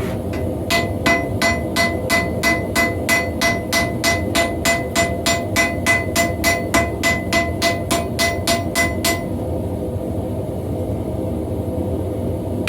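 Rapid, even hammer blows on hot steel against an anvil, about four a second with a ringing tone, setting a forge weld on a wrapped-eye axe. The hammering stops about nine seconds in, leaving a steady low rush underneath from the running gas forge.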